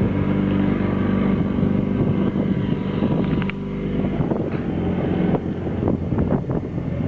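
Cruiser's motor running steadily as the boat moves along, with a few short knocks and rattles in the second half.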